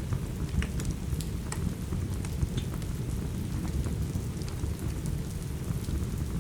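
Steady rain with a deep, continuous low rumble, sprinkled with scattered sharp crackles and ticks from a wood fire.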